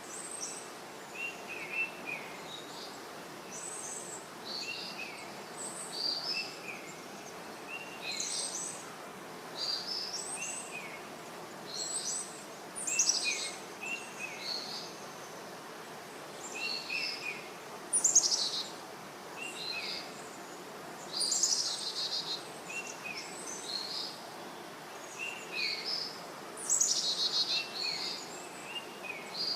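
Birds chirping: short, high calls repeating every second or so, with a few louder bursts, over a steady background hiss.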